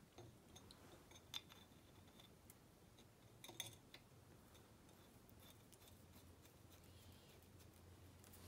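Near silence with a few faint metal clicks, one about a second in and a short cluster a couple of seconds later, as a water pump and its bolts are fitted by hand to an engine block.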